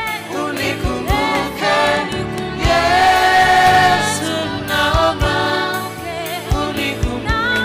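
Live gospel worship song: a woman's lead vocal with other voices and a band, over a steady drum beat.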